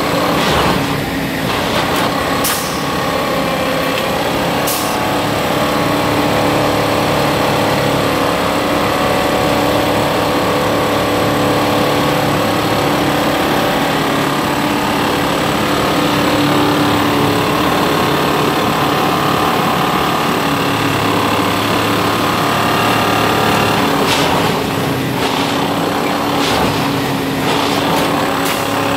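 Diesel engine of a Plasser & Theurer track maintenance machine running steadily under load, a constant mechanical drone. A few sharp clicks near the start, and short bursts of noise about 24 to 27 seconds in.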